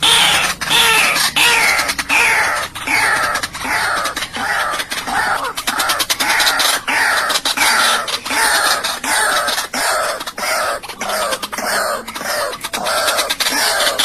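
White-breasted waterhen calling over and over, a harsh note that slides down in pitch, repeated about twice a second without a break.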